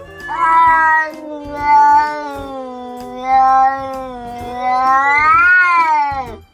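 Domestic cat yowling: one long, unbroken caterwaul that swells in loudness several times, climbs in pitch about five seconds in, then falls away and stops.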